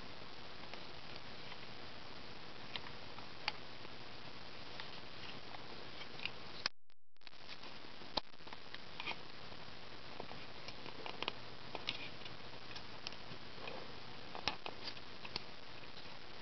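Small plastic model-kit parts of an SD Gunner Zaku clicking and tapping as they are handled and pressed together: a scatter of sharp ticks, more frequent in the second half, over a steady hiss. The sound cuts out for about half a second around seven seconds in.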